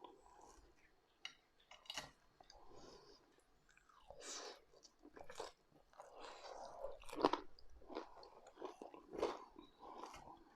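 A person chewing food close to the microphone, with irregular wet smacks and clicks.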